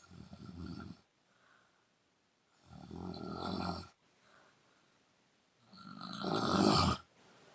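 A woman snoring with her mouth open: three snores about three seconds apart, the last the loudest, with faint breaths between them.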